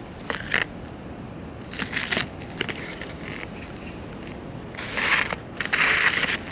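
Dry leaves and twigs crunching and rustling in about five short bursts, as someone pushes through undergrowth and steps on leaf litter. The loudest, longest burst comes near the end.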